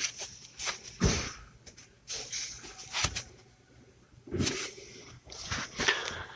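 Hand tools on a stabilizer link nut: irregular metallic clicks, clinks and short scraping bursts as the wrench and socket are fitted and turned.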